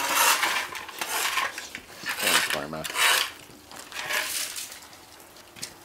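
Broom sweeping across patio paving: a series of rough scraping strokes, about one a second.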